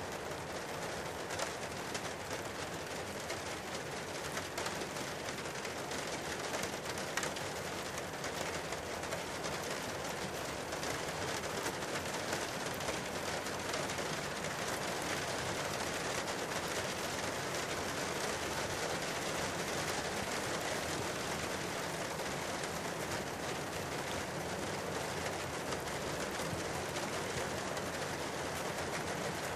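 Debris flow in a glacial gully: a steady rush of muddy water and rock, with many small knocks of stones clattering along in it.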